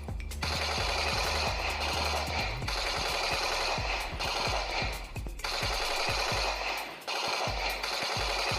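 Battery-powered toy machine gun playing its electronic automatic-gunfire sound in long rattling bursts, broken by short pauses about every one to two seconds.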